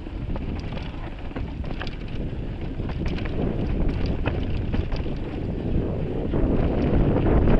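Wind rushing over an action camera's microphone while a mountain bike descends a dirt trail, with the rumble of knobby tyres on dirt and scattered clicks and rattles from the bike over bumps. The rush grows louder near the end as the bike picks up speed.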